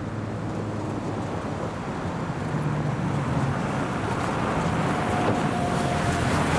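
Jeep Gladiator truck driving on a dirt track: steady engine hum with tyre and road noise, growing gradually louder.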